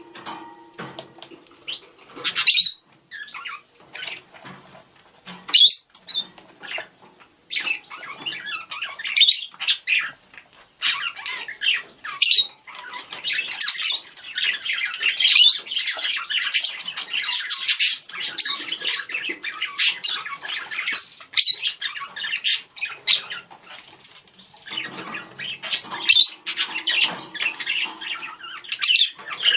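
Budgerigars calling to each other: quick sharp chirps and squawks, with a long unbroken stretch of warbling chatter through the middle.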